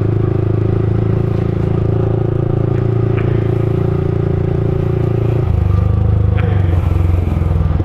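Motorcycle engine running steadily while riding. The engine note drops about five and a half seconds in.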